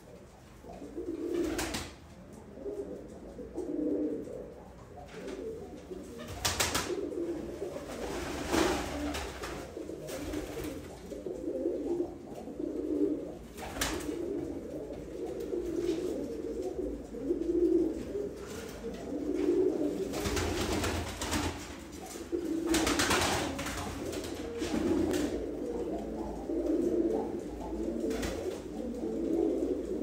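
Iraqi domestic pigeons cooing over and over, a low call every second or two, with a few brief louder noises among the coos.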